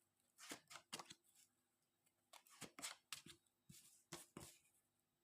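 Tarot cards being handled and laid out: quiet rustles and soft card slaps in three short clusters.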